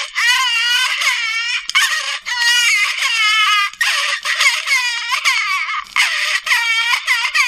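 Tiny phonograph record from an antique crying doll playing its recorded baby cry: a thin, tinny cry with no bass, repeating as short wavering wails, more than one a second.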